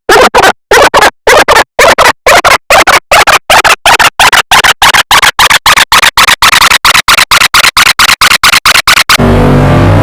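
Harsh bursts of static stuttering on and off, speeding up from about three to about eight a second. About a second before the end they give way to a low electronic buzz.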